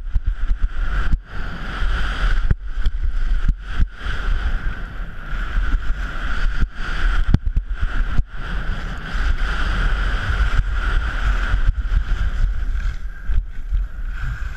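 Wind rushing over a GoPro camera mounted on a skier's helmet, with skis scraping over packed snow during a fast ski cross run. The rush is broken by several brief drops.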